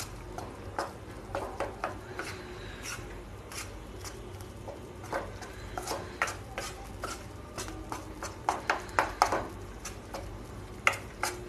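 Metal spoon scraping and clinking against a metal kadhai while slowly stirring gram flour into melted ghee. Irregular clicks and scrapes that come more often in the second half.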